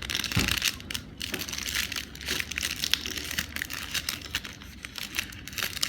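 Plastic candy wrapper being crumpled and crinkled by hand, a dense run of small crackles.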